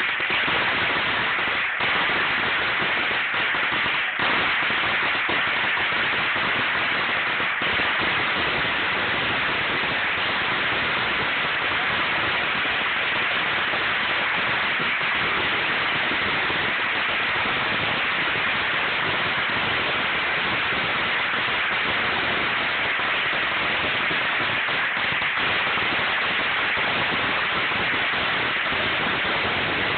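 A long string of firecrackers burning continuously, the reports so dense that they merge into one steady crackle, with a few sharper pops in the first few seconds.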